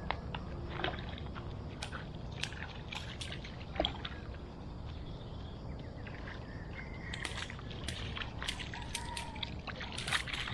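Outdoor ambience at a fishing spot: a steady low rumble with scattered sharp clicks and a few brief high chirps.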